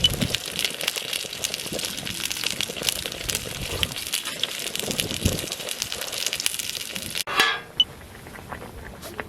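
Wood fire crackling with many sharp, irregular pops. About seven seconds in it cuts off abruptly, followed by a brief rush of noise and a quieter hiss.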